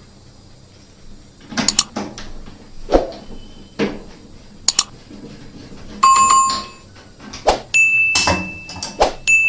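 Sharp knocks and clicks of parts being handled as a washing machine is reassembled. About six seconds in a short electronic chime sounds, followed from about eight seconds by a high steady beep that breaks off and resumes.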